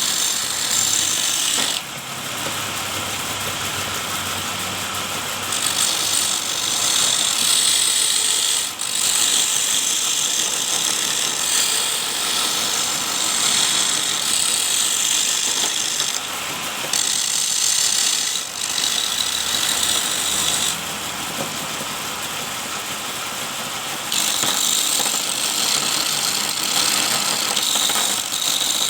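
Homemade wood lathe driven by an electric motor, running steadily while a chisel cuts the spinning wood in stretches of a few seconds at a time. The hiss of cutting comes and goes, over the steady hum of the motor.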